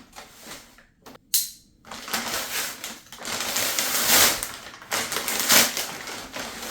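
Shipping package being torn open by hand, with crackling, rustling packaging in irregular bursts and a sharp rip about a second and a half in.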